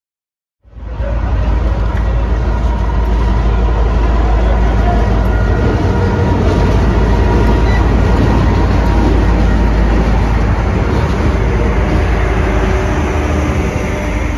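Egyptian National Railways diesel locomotive running loud and steady with a heavy low rumble as it hauls its passenger coaches past the platform. The sound begins abruptly just under a second in.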